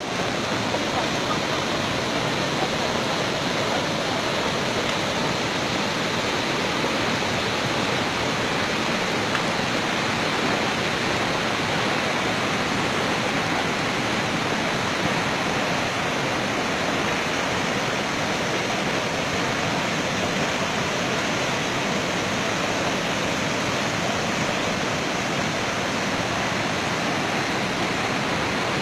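River in monsoon flood rushing through rapids and pouring over a weir: a steady, unbroken roar of fast-moving water.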